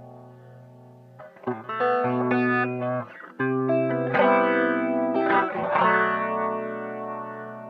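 Guitar played through effects such as chorus: a chord ringing out and fading, then chords struck again about a second in and several more times, each left to ring and die away.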